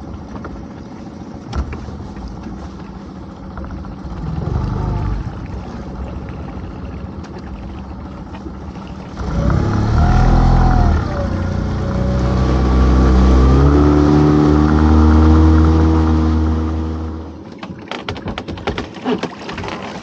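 Powered lobster pot hauler running as it winds a pot up from the seabed. Its motor hum rises in pitch as it speeds up, then holds steady and cuts off suddenly near the end. Clicks and splashes follow as the dripping pot comes out of the water.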